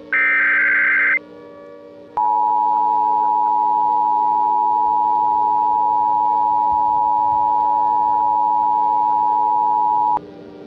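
Emergency Alert System alert opening: a warbling digital SAME header burst lasting about a second, then after a short pause a steady two-tone attention signal held for about eight seconds before cutting off abruptly. A low droning ambient music bed runs underneath.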